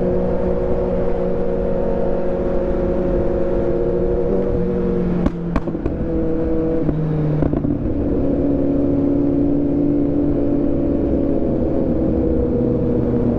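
Kawasaki motorcycle engine running hard at a steady pitch. The note drops in steps about four and a half seconds in, with a few sharp cracks around five and a half and seven and a half seconds, then holds steady again and slowly falls toward the end.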